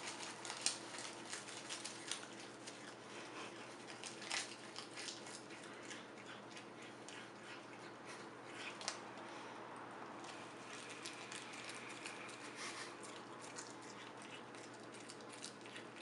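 A cat chewing seaweed: a run of small crisp clicks and crunches from its mouth, quickest and loudest in the first few seconds and sparser after.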